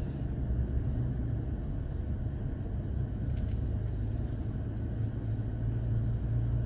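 Steady low rumble of a truck running, heard from inside the cab.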